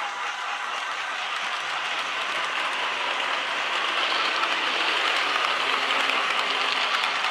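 00 gauge model train coaches rolling along the track: a steady rattling whir of small wheels on rail, growing a little louder partway through.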